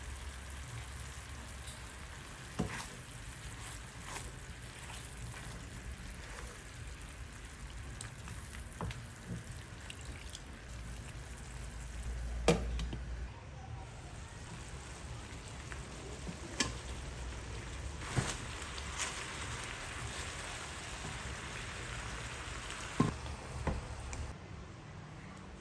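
Chicken pieces sizzling in adobo sauce in a pan, a steady hiss, with a few sharp knocks of a utensil against the pan.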